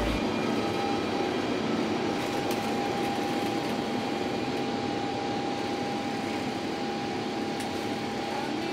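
Cabin noise of an Airbus A350-900 at full takeoff power, its Rolls-Royce Trent XWB engines and the rushing air heard inside the cabin as a steady noise with a steady whine. A deep rumble cuts out right at the start, and the noise stays level as the jet climbs away.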